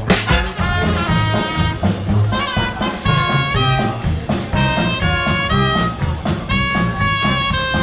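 A band playing Oktoberfest music, with brass horns carrying a stepping melody over a bass line.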